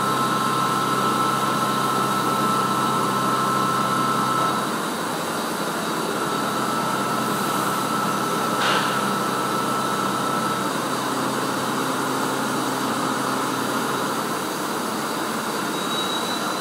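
CNC milling machine cutting Hastelloy with a 16 mm four-flute end mill at 1900 rpm under flood coolant: a steady, noisy machining whir with coolant spray. High whining tones sound over it, partly dropping out about four to five seconds in and stopping about eleven seconds in. There is one brief sharp sound a little past halfway.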